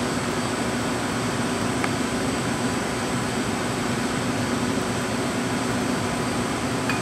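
Steady hum and hiss of a commercial kitchen's ventilation fan running at a constant level.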